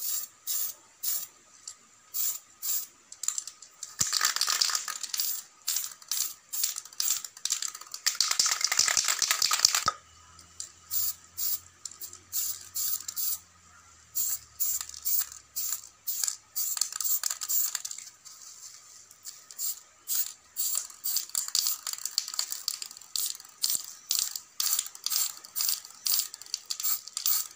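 Aerosol spray-paint can being shaken, the mixing ball rattling inside in regular strokes about two a second. The shaking grows faster and louder twice, a few seconds in and again around eight seconds in.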